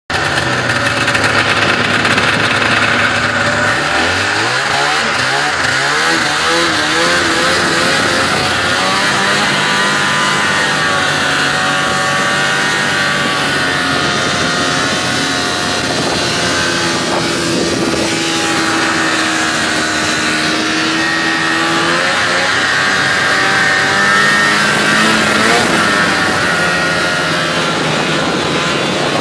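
Vintage two-stroke snowmobile engines running at speed, among them a 1974 Ski-Doo TNT 400 Free Air's fan-less air-cooled engine. The pitch climbs in quick rises about four to six seconds in as the throttle opens, then holds steadier with smaller rises and dips.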